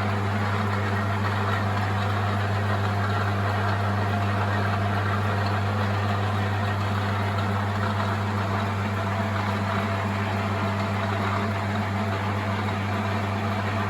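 Metal lathe running steadily with no cut, spinning a cast-iron gym weight in its chuck: a constant low motor hum under an even whirring noise.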